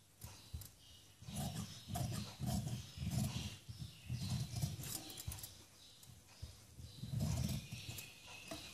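Scissors snipping through cotton fabric while hands drag and rustle the cloth, trimming away the excess fabric from behind a neckline facing. The sound is a series of short rubbing swells mixed with sharp snips.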